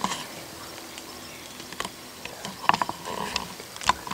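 Scattered rustles and a few sharp clicks: handling noise from a camera being moved about.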